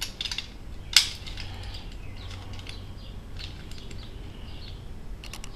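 Die-cast toy cars clicking and rattling against each other as a hand rummages through a box of them, with one sharper click about a second in and light rustling.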